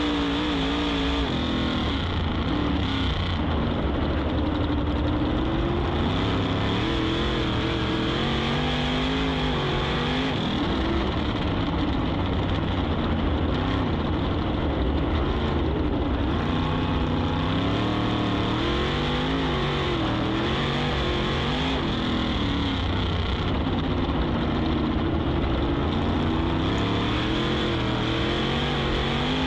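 A 410 sprint car's V8 engine, heard from the cockpit at racing speed. Its pitch rises and falls over and over as the driver lifts and gets back on the throttle through the turns.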